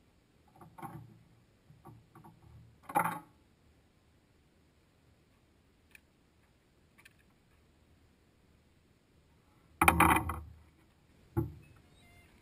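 A few scattered knocks and thumps. Several small ones come in the first three seconds, a louder one at about three seconds, the loudest at about ten seconds and a last, smaller one soon after, with quiet in between.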